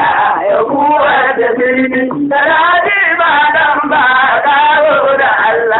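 Hausa traditional (gargajiya) song: voices singing in a chanting style without a break.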